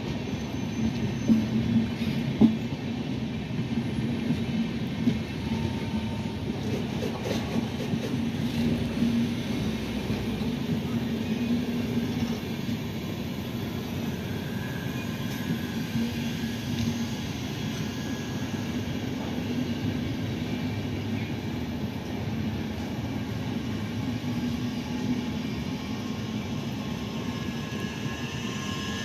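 Indian Railways LHB passenger coaches rolling past: a steady rumble of wheels on rail, with two sharp clicks in the first few seconds.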